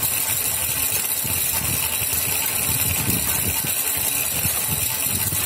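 Home-built electric bike's 850 W e-rickshaw motor running at speed, driving the raised rear wheel through a belt-and-pulley centre drive. The drivetrain makes a steady mechanical whir, with an uneven low rumble.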